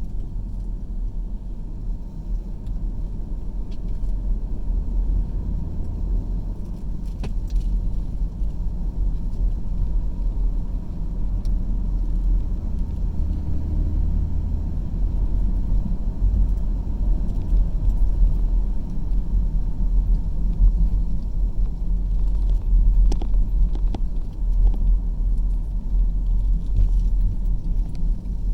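Steady low rumble of a car being driven, heard from inside the cabin: engine and tyre noise, with a few faint clicks or rattles.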